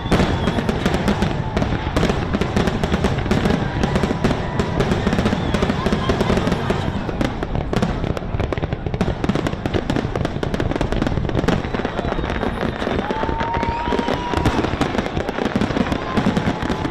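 Fireworks display with dense crackling and booming bursts throughout, and a whistling rocket rising briefly near the end, under a crowd's voices.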